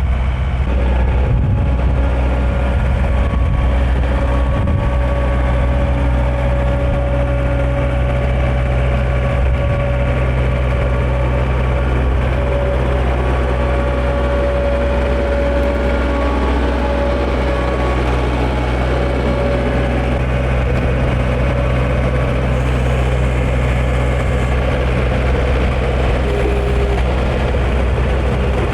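A heavy engine running steadily at a constant speed, with a deep low hum.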